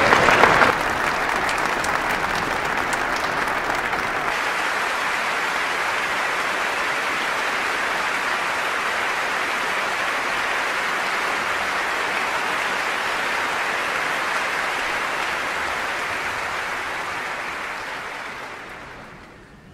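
Large concert-hall audience applauding, a dense steady patter of many hands. It is louder for the first moment, then holds even and fades out over the last few seconds.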